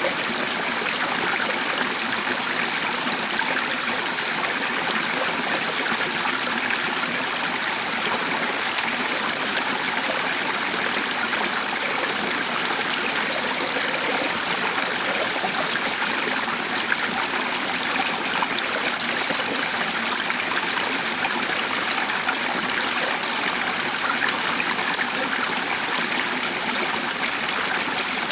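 A stream flowing steadily: an even, continuous rush of water.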